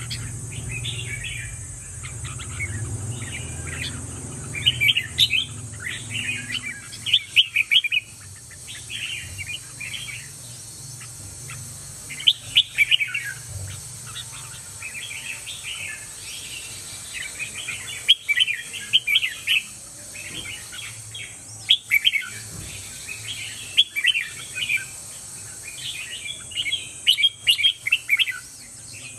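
Caged red-whiskered bulbul singing: bouts of short, bright warbled phrases, each bout a second or a few seconds long, with pauses of a few seconds between them.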